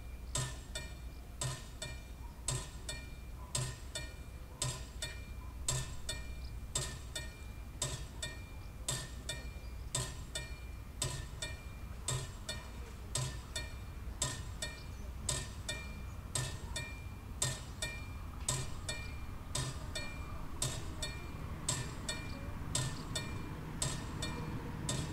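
Classic electromechanical level-crossing warning bell ringing steadily at about two strikes a second, each strike leaving a short metallic ring: the crossing is closed, with its AŽD 71 red lights flashing for an approaching train. A low rumble builds up underneath near the end.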